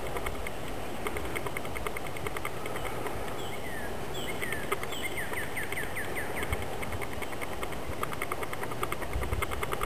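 Outdoor woodland ambience with birdsong: high chirps, then a quick run of down-slurred whistled notes around the middle. Underneath run a steady fast high ticking and a low rumble of noise.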